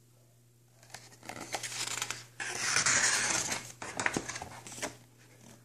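Paper rustling and crinkling as a picture book's pages are handled and turned, lasting a few seconds and loudest about halfway through.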